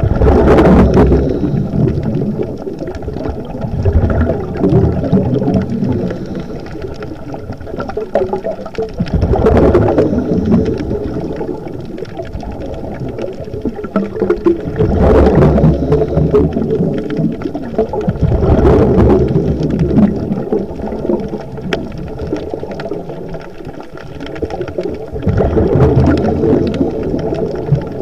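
Scuba regulator breathing heard underwater: exhaled bubbles rush past in loud surges about every four to five seconds, with a steady low underwater rumble between breaths.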